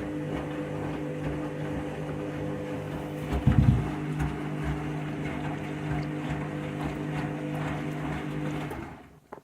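Washing machine running its final spin, a steady motor hum with a brief heavy low thudding about three and a half seconds in. The sound cuts off just before the end.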